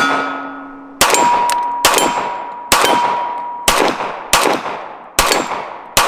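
Seven pistol shots from an FK PSD firing 9 mm light hand loads, about one a second. Each hit on a steel target leaves a lingering metallic ring.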